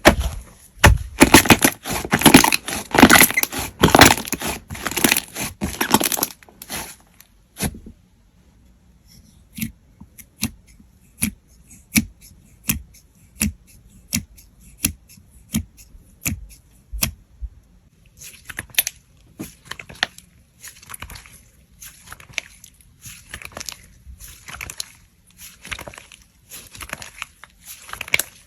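Slime being squeezed and pressed by hand, crackling densely at first, then giving single sharp pops a little over once a second, then crackling more softly again near the end.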